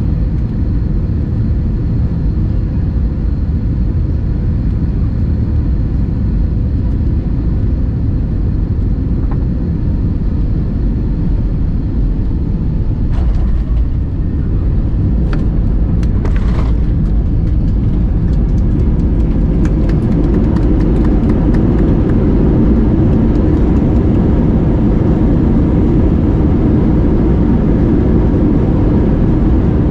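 Jet airliner cabin noise on landing: a steady engine and airflow rumble. About halfway through come a few sharp knocks as the wheels touch down, and then the rumble grows louder as the jet decelerates on the runway with its spoilers raised.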